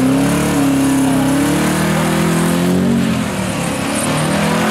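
Holden VH Commodore V8 held at high revs in a burnout, its note wavering up and down over the hiss of the spinning rear tyres, sagging briefly a little past three seconds in before picking up again.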